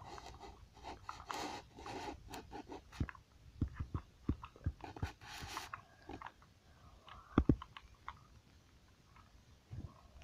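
Plastic clicks, taps and rustling from a Yo-kai Watch toy and a plastic medal being handled and fitted into the watch, with a sharper knock about seven seconds in.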